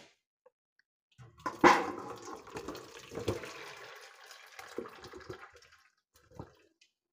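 Wet pieces of peeled cassava tipped from a steel bowl into a perforated steel steamer: the pieces slide and clatter onto the metal with water splashing for about four seconds. A sharp knock comes just after it starts, and a last small knock near the end.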